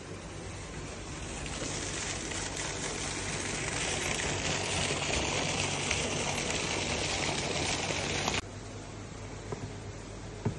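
Steady rush of flowing river water, growing louder over the first few seconds and then cut off suddenly about eight seconds in. Quieter room sound follows, with a single tap of a chess piece set down on the board near the end.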